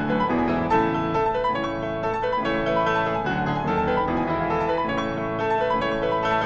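Instrumental background music led by piano, with steady chords and a gently moving melody.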